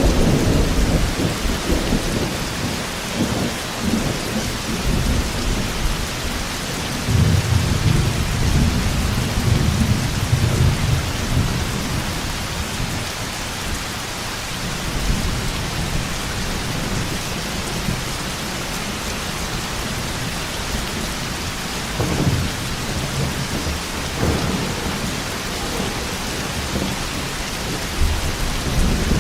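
Thunderstorm: steady heavy rain with deep rolling thunder, loudest at the start and again from about 7 to 11 seconds in, with shorter rumbles later.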